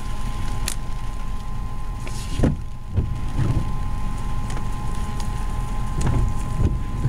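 Vehicle engine idling with a steady low rumble under a faint constant high whine, with a few soft thumps and knocks scattered through.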